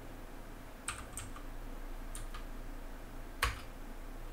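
Computer keyboard being typed on: a handful of separate keystrokes, the loudest about three and a half seconds in.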